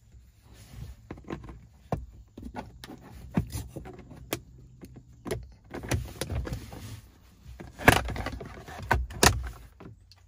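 Jeep JL's plastic lower dash trim panel being pried off its six push clips with a plastic trim tool: a run of clicks, knocks and plastic rattles as the clips pop loose, the two loudest snaps coming near the end, about a second and a half apart.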